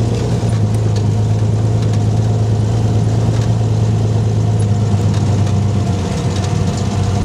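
Off-road 4x4's engine running steadily with an even low hum, easing off slightly near the end.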